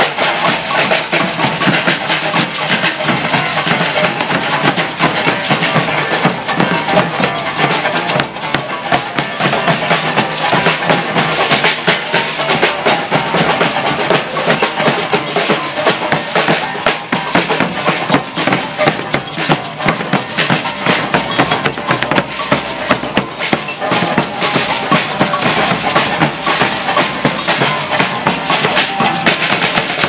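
Maracatu percussion ensemble playing a driving, steady rhythm: alfaia bass drums struck with sticks, snare drums and rattling agbê (beaded gourd shakers) together.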